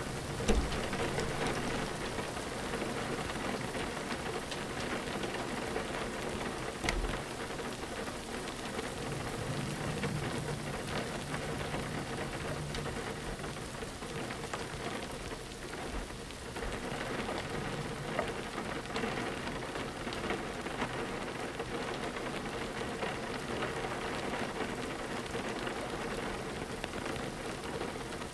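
Steady rain pattering on a window pane. Two low thumps stand out, about half a second in and about seven seconds in, and a low rumble runs for a few seconds in the middle.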